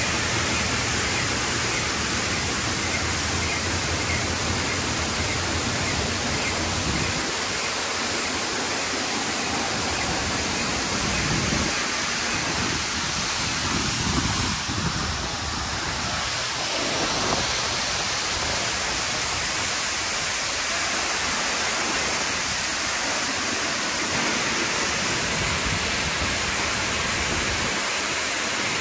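Touchless automatic car wash spraying a car with high-pressure water jets: a steady, loud hiss of spray and water drumming on the car. A low hum sits under it for the first several seconds.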